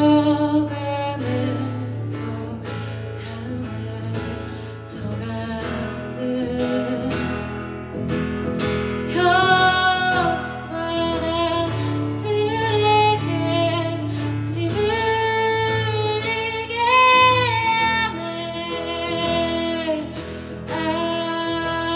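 Live song performance: guitar accompaniment with a singer holding long, bending notes, the vocal lines strongest in the second half.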